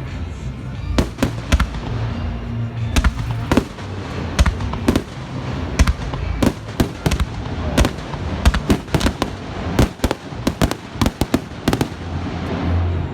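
Aerial fireworks bursting in quick succession: a continuous run of sharp bangs and crackles over a low rumble, thickest in the second half.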